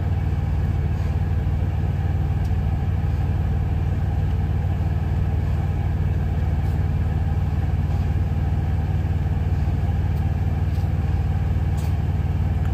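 Steady low drone of a semi-truck's diesel engine idling, heard from inside the cab, with a few faint clicks over it.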